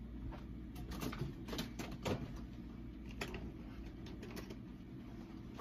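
Faint, scattered clicks and knocks of someone rummaging off-camera through shop items, over a steady low room hum.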